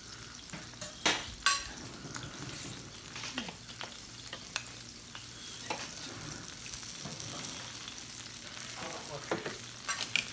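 Pork and shrimp sizzling steadily on a tabletop Korean barbecue grill plate, with metal tongs clicking against the food and grill, two sharp clicks about a second in being the loudest.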